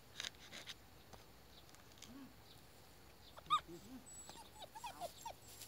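A dog whining and yelping in a string of short rising-and-falling cries. The sharpest and loudest yelp comes about three and a half seconds in, with smaller whines after it. A few light clicks of a knife cutting passion fruit come near the start.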